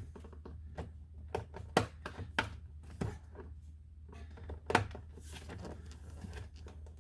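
Scattered light clicks and taps of a metal pick prying at a plastic steering-column shroud, working its clips loose, over a steady low hum.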